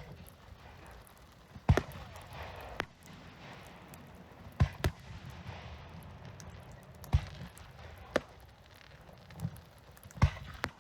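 Fireworks display: about eight aerial shells burst with sharp bangs one to three seconds apart, two of them in quick succession near the middle, over a steady hiss between the bangs.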